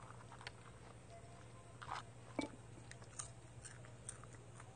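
Popcorn being chewed: faint, irregular crunches, a few of them a little louder.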